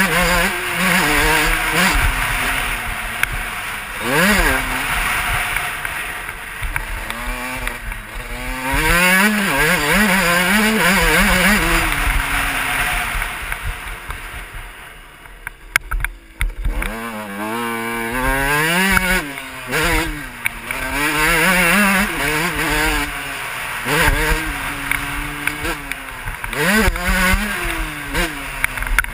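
Suzuki RM125 125 cc two-stroke motocross bike's engine under hard riding, its pitch sweeping up and down again and again as the throttle is opened and gears are changed. About halfway through it drops quieter for a second or two, then revs back up.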